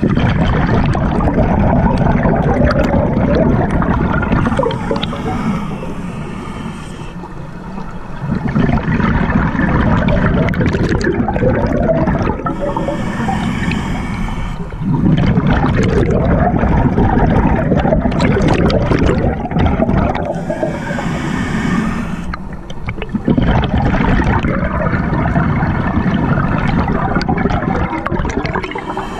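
Scuba diver breathing through a regulator underwater: long bubbling exhalations, each followed by a short hiss of inhalation, about four breaths in all.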